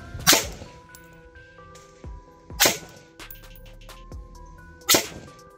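Three rifle shots fired at a slow, aimed pace, a little over two seconds apart, over background music.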